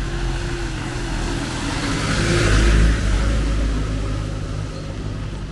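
A motor vehicle passing close on a wet street: a low engine hum with tyre hiss that swells to a peak about halfway through and then fades away.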